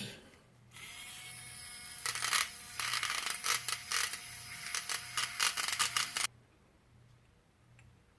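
A small electric tool whirs for about five seconds with rattling clicks throughout, then cuts off suddenly.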